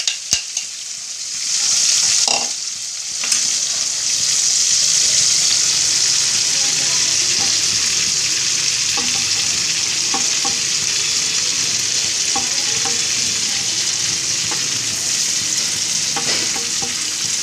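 Hot oil and leftover gravy sizzling in a frying pan: a steady hiss that builds over the first few seconds and then holds. There are a few soft taps as pieces of fried chicken are laid into the pan.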